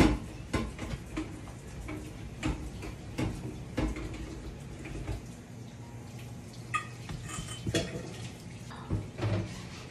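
Cloth wiping the lid of a Le Creuset enamelled cast-iron Dutch oven, with a sharp knock at the start and scattered light knocks and clinks of the lid throughout.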